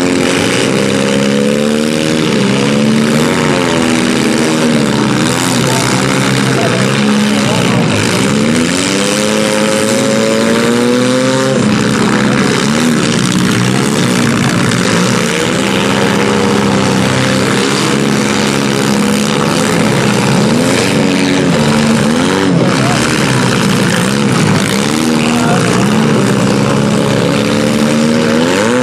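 Several small demolition derby cars' engines running together, revving up and down over and over in overlapping glides, loud and continuous.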